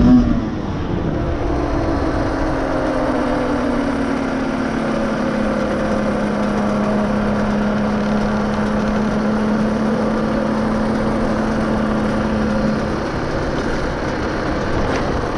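Off-road vehicle engine under way: a high rev drops off right at the start, then the engine holds a nearly steady note at part throttle, sagging slightly and easing off near the end.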